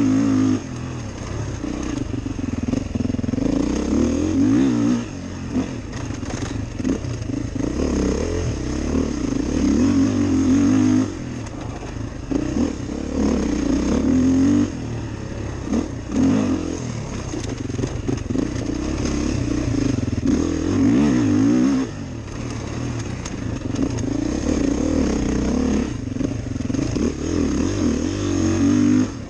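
Beta 430RR four-stroke single-cylinder dirt bike engine under way on a dirt trail, its note rising as the throttle opens and dropping off briefly every few seconds as the rider rolls off.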